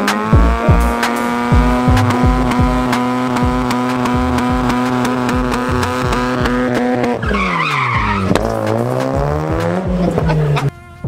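A car doing a burnout, its engine held at steady high revs while the tyres spin. About seven seconds in, the revs drop and climb again as the tyres squeal, then the sound cuts off suddenly. Music with a thumping bass beat plays underneath.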